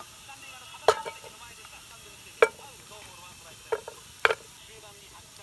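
Metal cookware clinking: four sharp knocks, about a second or so apart, as a utensil strikes a pot or pan during campfire cooking.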